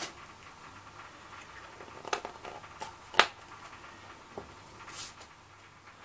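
A small clear plastic piece being handled over a glass bowl of water: a handful of light, scattered clicks and taps. The sharpest tap comes a little after three seconds in.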